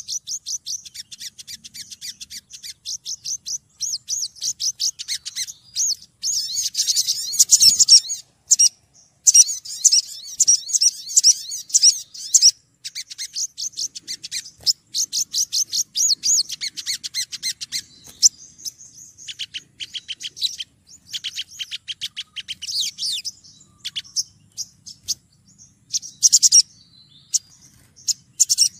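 Female olive-backed sunbird calling in long, rapid runs of high, thin chirps, broken by a few short pauses. It is the excited call a female gives to draw males in, used here as a lure recording.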